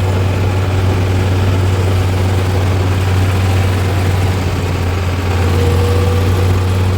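Heavy diesel engine idling steadily with a deep, even hum.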